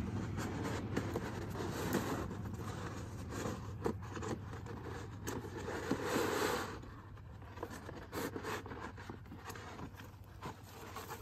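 Rustling and scraping with scattered light clicks over a faint, steady low hum. It grows quieter about seven seconds in.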